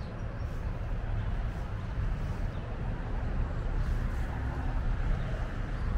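Outdoor city street ambience: a steady low rumble of road traffic, growing slightly louder toward the end as vehicles draw nearer.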